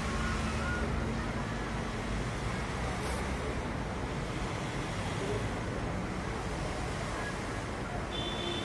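Steady rush of road traffic at a busy junction, with a low engine hum fading out in the first couple of seconds.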